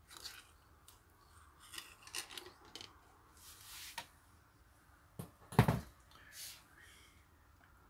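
Old metal cylinder head gasket being peeled off the engine block deck and handled: a series of short scrapes and metallic clicks, with a longer rasp about three and a half seconds in and a loud clank about five and a half seconds in.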